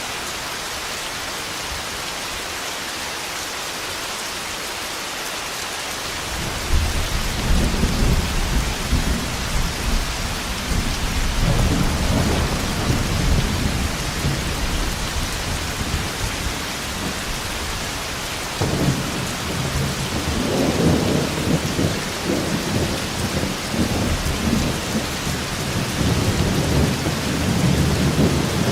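Steady heavy rain, then thunder breaking in about six seconds in and rolling on in deep rumbles, with a second sharp clap about two-thirds of the way through.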